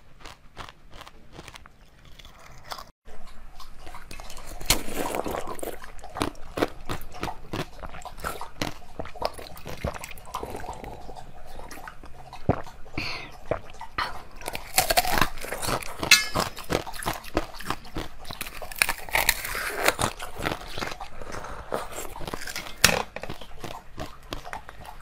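Close-up eating sounds: a person biting into and chewing translucent sweets, with many sharp, crunchy clicks and wet chewing throughout.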